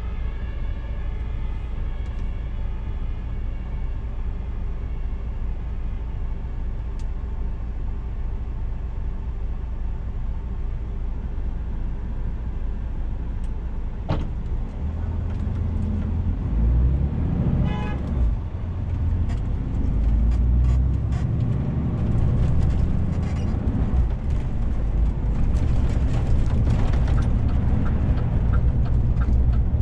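DAF CF 450 truck's diesel engine heard from inside the cab, idling steadily, then pulling away about halfway through after a click. The low rumble and road noise grow louder as the truck gathers speed.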